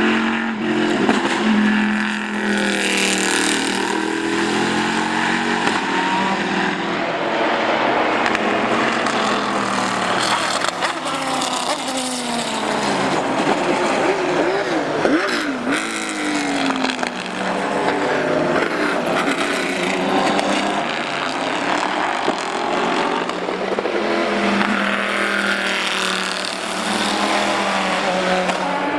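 Panoz Esperante GTR-1 racing car's 6-litre Ford/Roush pushrod V8 running loud and hard, its engine note repeatedly rising and falling with revving and gear changes as it passes.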